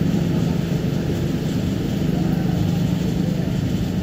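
Diesel engine of a Hino RM280 coach pulling away on a dirt road, a steady low drone, with motor scooters passing close by.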